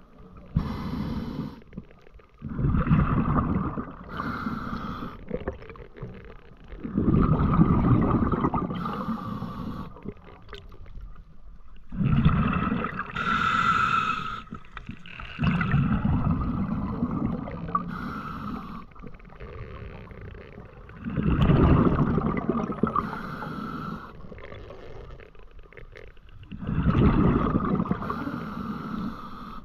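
A spearfisher's slow, heavy breathing through a snorkel, long rushing breaths every few seconds with short pauses between, muffled by the camera's underwater housing.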